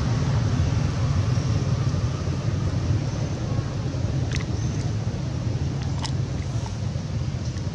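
Steady low rumble with a hiss over it, broken by a couple of faint sharp ticks.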